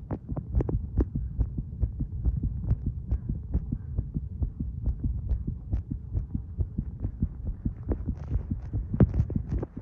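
A person's heartbeat, picked up close to the chest while they smoke: a steady run of low thumps over a low hum, with one louder thump near the end.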